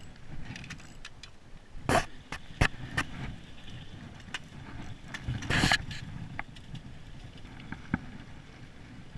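Wind on the microphone with a few sharp knocks and clicks and one brief rustling scrape about halfway through: handling noise from the angler's jacket and fishing gear against the camera.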